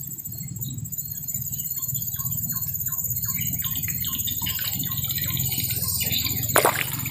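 Spinning reel being cranked steadily to bring in a hooked fish: a quick run of even ticks over a steady low rumble, with a sudden sharp noise near the end.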